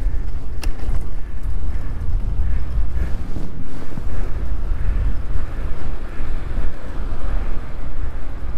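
Wind buffeting a GoPro microphone while riding an electric mountain bike: a loud, uneven low rumble, with one sharp click about half a second in.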